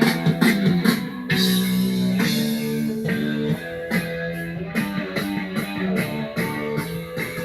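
Background rock music led by guitar, with bass and drums.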